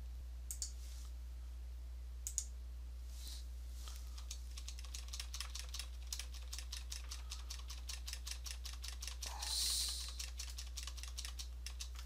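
Typing on a computer keyboard: a couple of lone clicks, then a quick run of key clicks from about four seconds in until near the end. A short hiss breaks in about three-quarters of the way through.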